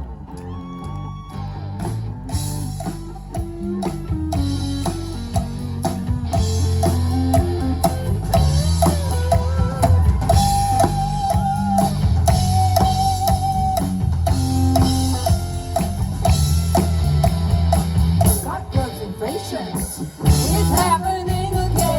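Live rock band playing with drum kit, bass and electric guitar keeping a steady beat under a melodic lead line.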